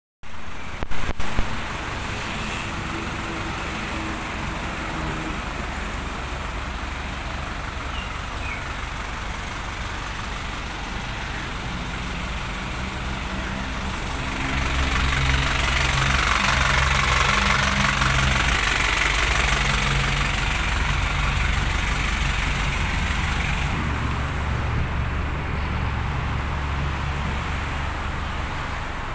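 Diesel engine of a Hicom Perkasa MTB 150 DX light truck idling steadily, louder for several seconds in the middle, with a few sharp knocks about a second in.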